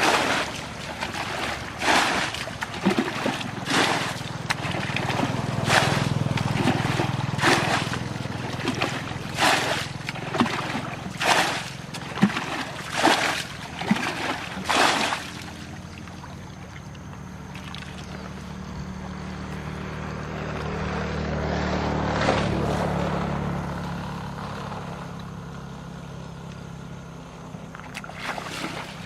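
Water splashing in regular strokes about once a second over a low motor hum; after about fifteen seconds the splashing stops and the boat motor's drone carries on alone, swelling and then fading.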